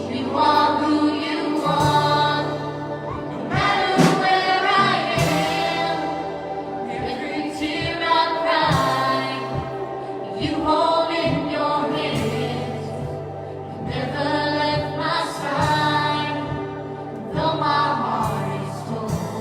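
Church worship music: voices singing a slow song over band accompaniment, with held low bass notes that change every couple of seconds.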